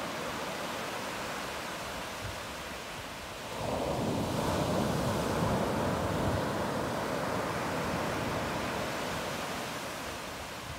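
Ocean surf washing onto a shore, with a wave surging in louder about a third of the way through and then slowly ebbing.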